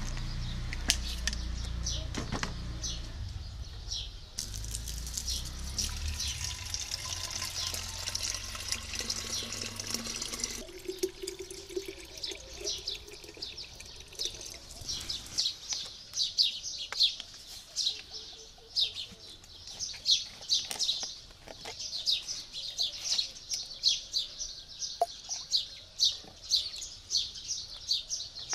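Liquid pouring into a plastic hand-pump sprayer bottle, with birds chirping over it. The chirps come one to two a second and grow louder and denser through the second half, where they are the loudest sound.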